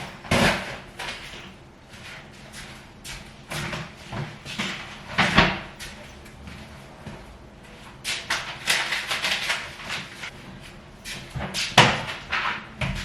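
Groceries being handled and put away: rustling packaging, several knocks and bangs as items and cupboard doors are shut or set down, the loudest about five seconds in and near the end.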